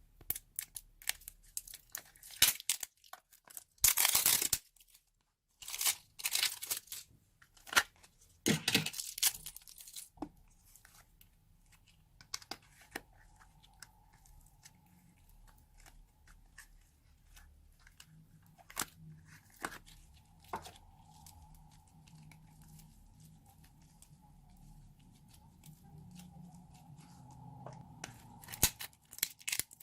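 Slime being squished and stretched by hand, making a run of sticky crackles and pops that come thick and fast for the first ten seconds or so, then more sparsely.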